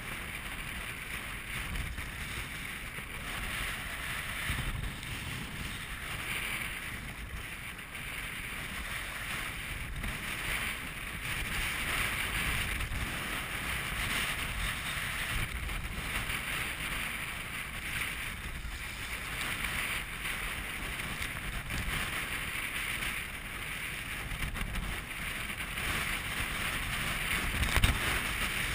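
Strong wind of about 25 knots buffeting the microphone over choppy water splashing around a sea kayak's hull and paddle, swelling and easing every few seconds, with one sharper splash near the end.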